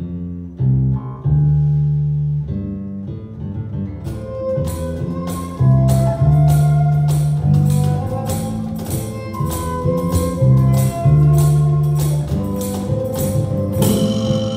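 Live instrumental band music: a bass guitar plays a plucked line, and about four seconds in a violin joins with long held notes while percussion keeps a steady beat of about two hits a second.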